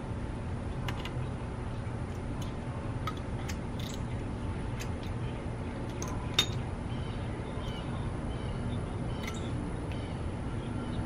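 Scattered light metallic clicks and taps as a brake rotor and caliper are handled and fitted onto a 1986 Cadillac Eldorado's front hub. One sharper clink comes a little past the middle. A steady low rumble runs underneath.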